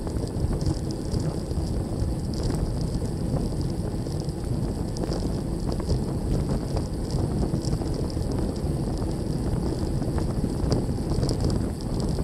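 Wind buffeting the microphone of a handlebar-mounted bike camera on a fast bicycle descent, a steady low rumble with tyre and road noise underneath and faint high rattling ticks.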